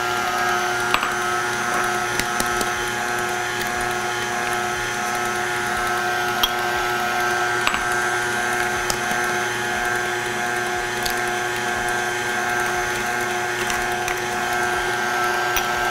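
Electric mixer running at a steady speed, beating cake batter: an even motor whine with a few sharp clicks.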